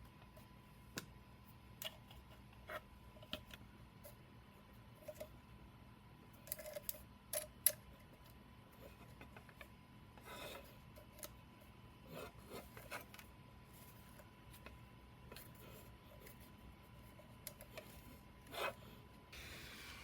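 Scattered light clicks, taps and brief rubbing scrapes of small objects being handled by hand, over a faint steady hum. There is one louder scrape near the end, and a steady hiss starts just before the end.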